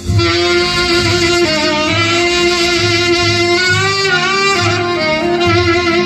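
Saxophone playing a trot ballad melody with bending, wavering notes over a backing accompaniment with a steady bass beat; a loud new phrase comes in at the start.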